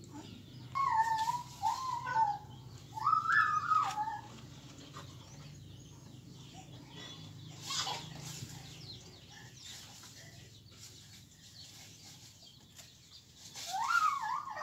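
A dog whining: high, wavering cries that slide up and down, for about three seconds starting a second in, and again near the end.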